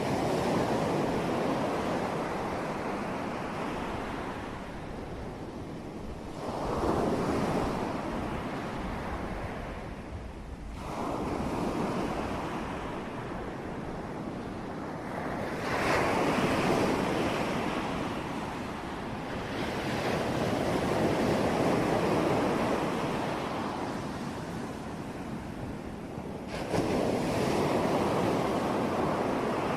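Ocean waves breaking on a shore, a new wave crashing every four to five seconds, each swelling quickly and washing out over a few seconds, over a steady rush of surf.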